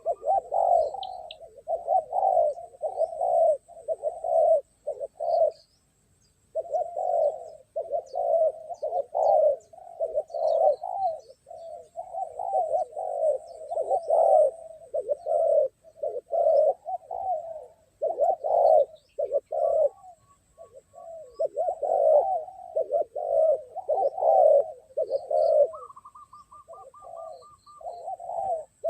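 Spotted doves cooing over and over, phrase after phrase with only short breaks: a caged decoy male and a wild male calling against each other in a territorial contest.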